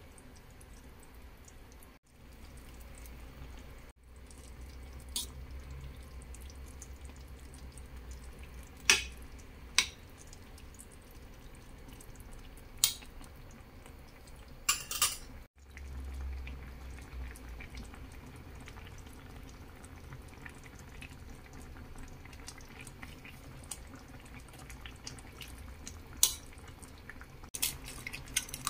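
Kimchi stew simmering in a claypot on a gas burner: faint bubbling over a low steady hum, with several sharp knocks and clinks against the pot. A quick cluster of clicks near the end, as an egg is cracked into the stew.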